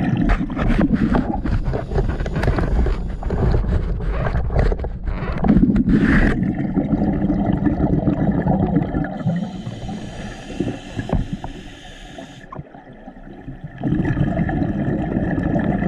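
Muffled underwater rumble and water noise at a camera on the river bottom, with scrapes and knocks through the first several seconds. It drops away partway through, when a thin hiss is heard, and the rumble comes back near the end.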